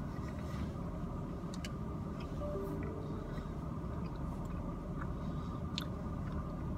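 Steady low hum inside a parked car's cabin, with a few faint clicks and mouth sounds of someone chewing a mouthful of stew.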